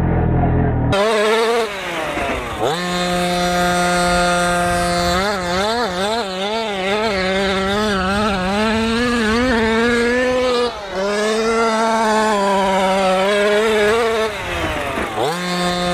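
Two-stroke gas engine of a 1/5-scale Kraken VEKTA RC trophy truck with a tuned pipe, running at high revs as the truck is driven. Its pitch wavers up and down over and over, and twice, near the start and near the end, the revs drop sharply and climb straight back.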